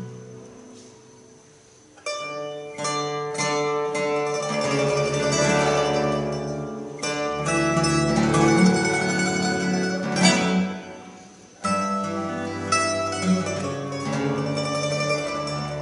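Mandolin, classical guitar and double bass playing an instrumental piece together. The music dies down to a quiet held sound, then comes back in strongly about two seconds in, and there is a second sudden entry of the full ensemble about three quarters of the way through.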